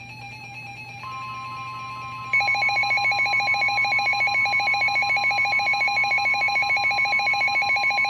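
Weather radio warning alarm: a steady 1050 Hz alert tone comes on about a second in. A couple of seconds later a louder, rapidly pulsing two-tone warble joins it, and both hold steady. The alarm announces an incoming warning broadcast, here a severe thunderstorm warning.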